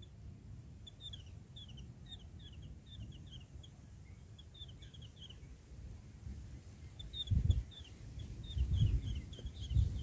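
Short, high, down-slurred chirps of white-eyes at the nest, coming in quick runs of several notes. From about seven seconds in, low rumbling thumps join and become the loudest sound.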